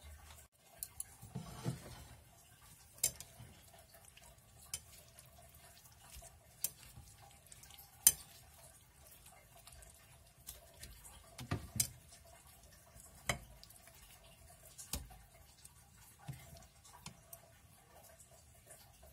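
Chopsticks tapping and clicking against a ceramic plate while picking through stir-fried pak choy: scattered light clicks, the sharpest about eight seconds in, with a few duller knocks.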